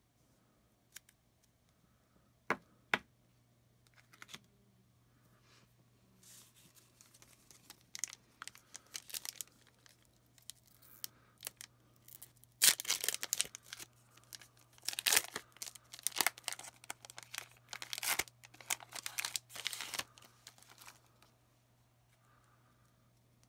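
Crinkly card packaging being handled and torn. There are a few sharp clicks near the start, then scattered rustles that turn into a busier, louder run of crackling rips about twelve seconds in.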